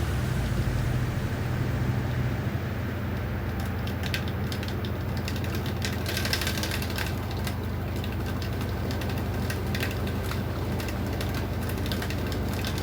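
LG 8.0 kg washing machine running: a steady low hum with scattered light clicks and knocks.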